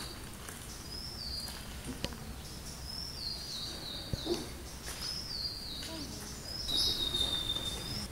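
A bird calling again and again, each call a short high whistle that steps down in pitch, about once a second, over low steady outdoor background noise. The longest and loudest call comes near the end.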